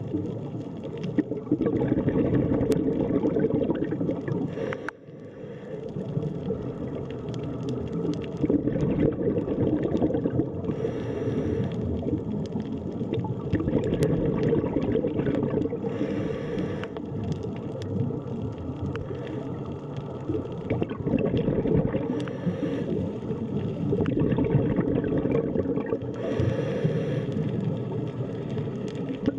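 Underwater sea ambience: a steady, deep rumbling wash of water with gurgles, swelling now and then into brief brighter hissy surges, and a short lull about five seconds in.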